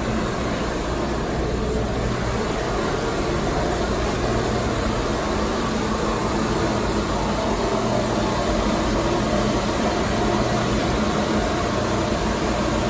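Steady hum of an R142A subway train standing in the station, its air-conditioning and auxiliary equipment running.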